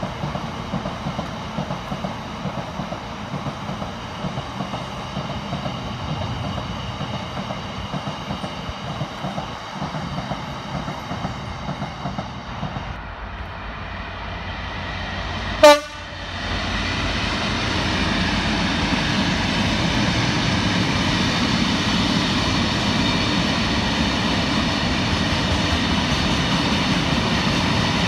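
Freight train wagons rolling past. Just past halfway there is a brief sharp click. After it a second freight train of open box wagons runs past, louder and steadier.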